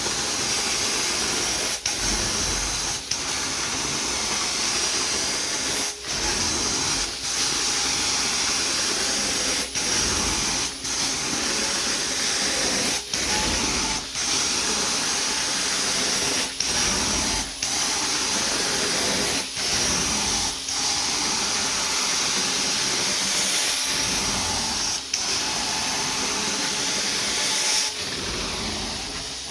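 Carpet cleaning extraction wand running: a steady hissing vacuum and spray, broken by short dips every second or two as each stroke ends.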